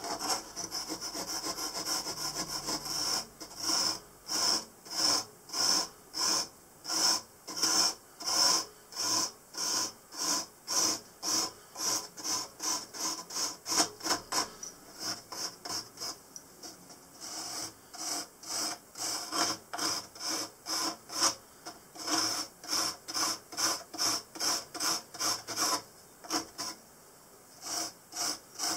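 A small hand blade rasping back and forth into soft kiln insulation board, cutting a recess around the oven's door opening for the high-temperature rope seal. It goes in steady strokes of about two a second, with a couple of short pauses.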